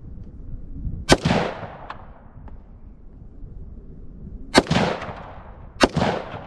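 Three gunshots, each trailing off in a short echo: one about a second in, then two more a little over a second apart later on.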